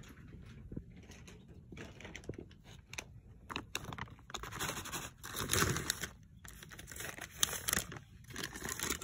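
Plastic Temptations cat-treat pouch crinkling and rustling as it is handled. The rustling turns into dense, louder bursts a few seconds in.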